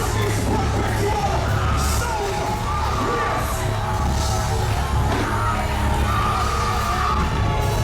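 Loud live gospel worship music, with a heavy bass line and cymbals under voices singing and calling out.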